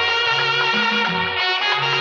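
Background music: an instrumental passage of a Bollywood-style film song, with brass over a stepping bass line.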